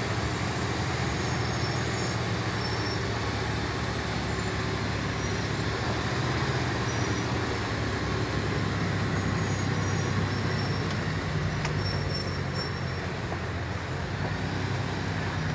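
MAN TGS 6x6 truck's diesel engine running steadily, heard inside the cab, under the rumble of tyres on a gravel road.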